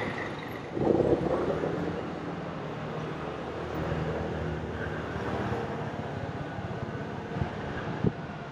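City street traffic: a motor vehicle's engine running steadily over the general hum of the street, with a brief louder rush about a second in.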